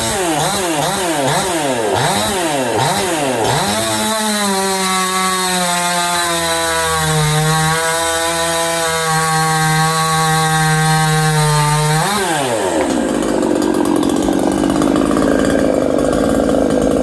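Ported and polished Proyama PCS68 two-stroke chainsaw. For the first few seconds the throttle is blipped repeatedly, about six quick rev-ups. It is then held wide open at a high, nearly steady pitch for about eight seconds, and the revs drop sharply back to a rough idle about twelve seconds in.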